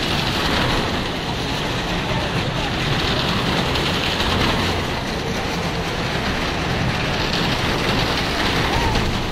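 Two Maruti cars driving round and round the vertical wooden wall of a well-of-death drum, their engines running and tyres rumbling over the planks in one steady, dense din.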